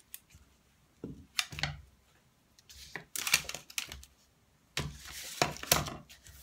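Scissors snipping a piece of twine and being handled on a tabletop, then card stock sliding and tapping on the table: three clusters of short clicks and rustles.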